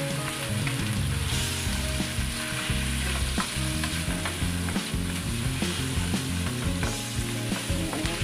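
Cubed chicken breast and vegetables sizzling in a stainless steel wok as they are stir-fried, with the ladle clicking and scraping against the pan at irregular moments.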